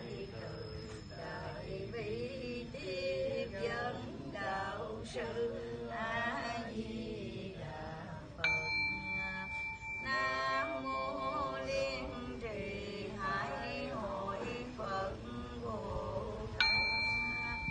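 Buddhist sutra chanting, voices rising and falling in a steady recitation. A small ritual bell is struck twice, about halfway through and near the end, each strike ringing on for a second or two.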